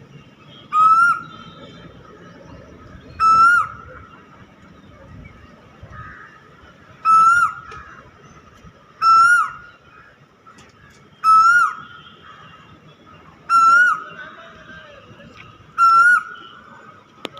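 A cuckoo calling seven times, roughly every two seconds. Each call is a short single clear note that ends in a quick drop in pitch.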